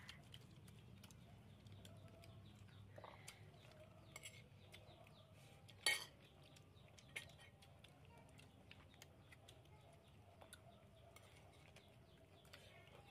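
Quiet tableware sounds: faint clinks and taps of spoons against plates and bowls as people eat, with one sharper clink about six seconds in, over a faint low hum.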